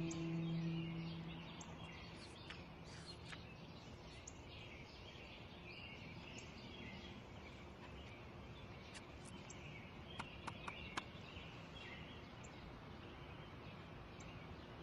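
Small birds chirping in a garden over a steady faint outdoor hiss, with scattered high chirps and a quick run of four sharp chirps about ten seconds in. A held music note fades out at the start.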